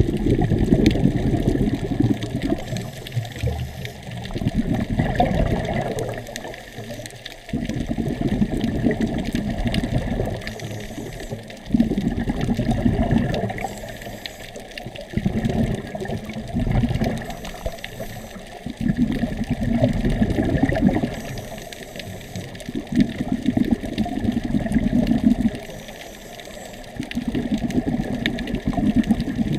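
Muffled rushing and sloshing of water picked up by a camera underwater, surging and easing every few seconds.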